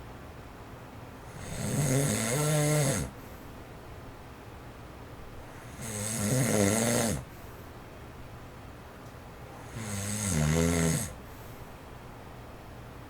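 A man snoring in his sleep: three loud snores, each a second or two long, about four seconds apart. Between them an electric fan set on low runs faintly and steadily.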